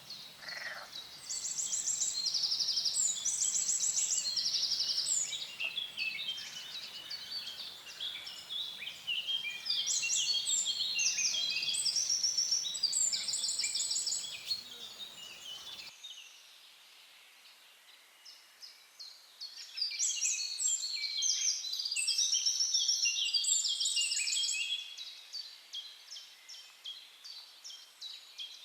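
Songbirds singing in a dense chorus of rapid trills and chirps, in two long bouts with a quieter lull in between. The low background rumble drops out abruptly about halfway through.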